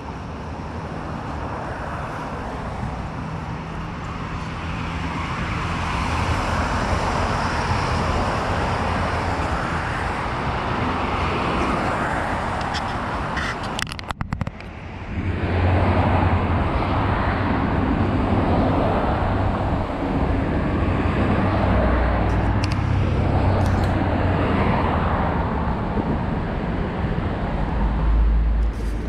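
Steady road traffic noise from cars on a nearby highway, swelling and easing as vehicles pass, with a brief drop about halfway through.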